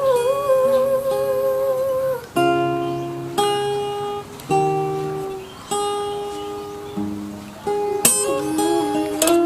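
Acoustic guitar strumming single chords roughly once a second and letting each ring. A singing voice holds a long note with vibrato over the first two seconds, and a wavering note returns near the end.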